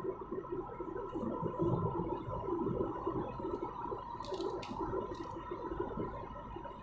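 Road and engine noise inside a moving car's cabin at highway speed: a steady low rumble and hum, with a few short high hisses about four to five seconds in.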